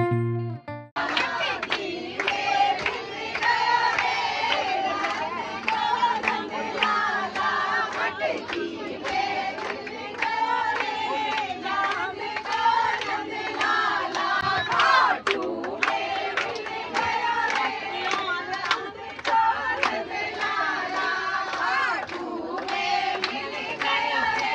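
Background guitar music stops about a second in. Then a group of women sing a devotional song together and clap along, many voices at once with dense, sharp hand claps.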